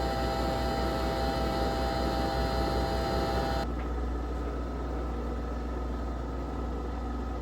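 Nespresso Vertuo Next coffee machine brewing, spinning the capsule at high speed with a loud, steady whirring hum. About three and a half seconds in, the higher whine drops away and a lower hum carries on.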